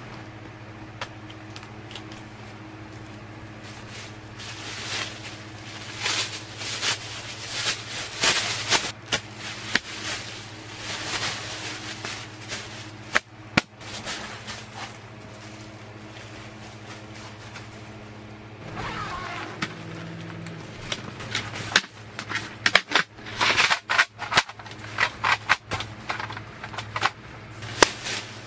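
Hard plastic parts clicking and snapping together and a plastic bag rustling and crinkling as a folding plastic frame and a collapsible bucket are put together and lined with bags. The clicks come in scattered bursts, over a steady low hum.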